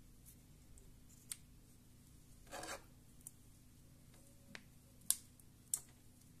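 Metal tweezers working the small plastic parts of a Plantronics Voyager Edge Bluetooth headset during disassembly: a brief scrape about two and a half seconds in, then a few sharp clicks, the loudest about five seconds in.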